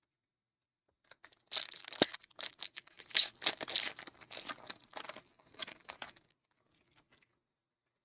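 A trading card pack's wrapper being torn open and crinkled: a dense run of crackles starting about a second and a half in and stopping after about five seconds.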